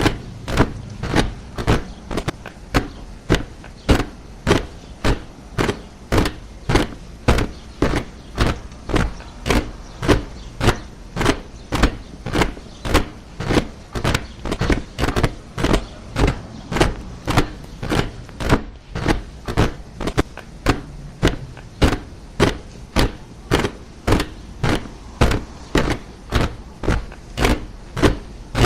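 A group of soldiers marching in step, their boots striking together in an even beat of about two footfalls a second.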